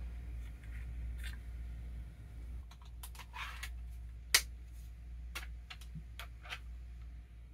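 Crosman 2240 bolt-action CO2 pistol being degassed: light metallic clicks of the bolt and trigger being worked, with one sharp snap a little past four seconds as it dry-fires on a nearly empty CO2 cartridge.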